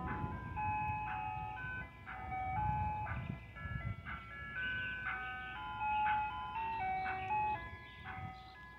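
Ice cream truck jingle playing from the truck's loudspeaker: a simple electronic melody of clear notes, changing every fraction of a second, over a low rumble.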